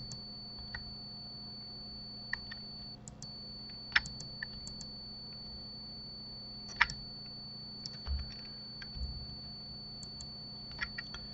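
Scattered computer keyboard presses and mouse clicks, singly and in small groups with pauses, the sharpest about four and seven seconds in. Under them runs a steady low electrical hum with a thin high whine.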